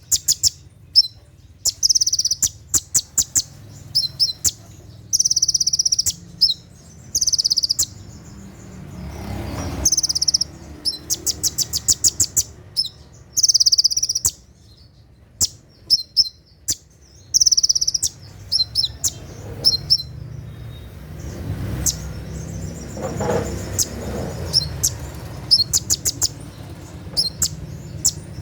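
Konin (kolibri ninja sunbird) singing in its rapid 'tembakan' bursts: short, very high-pitched trills and sharp chips, repeated every second or two, over a faint low hum.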